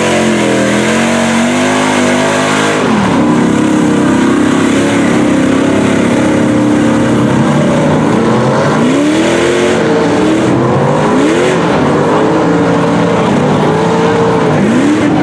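Lifted mud truck's engine running hard as its tractor tires churn through a mud pit, with the hiss of spraying mud and water. In the second half the engine is revved up and down several times in quick swoops.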